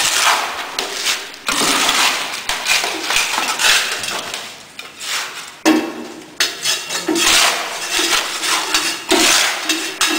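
Steel trowel scraping and turning freshly mixed concrete in a metal tray, in repeated scraping strokes with metal knocks.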